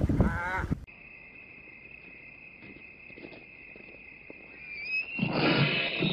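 A hyena's wavering, high squealing calls, cut off suddenly about a second in. A steady high insect chirp follows, then loud, rough animal calls and growls near the end as a lion mauls a hyena.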